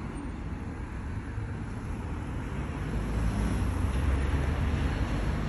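Low rumble of road traffic, swelling about halfway through as a vehicle goes by.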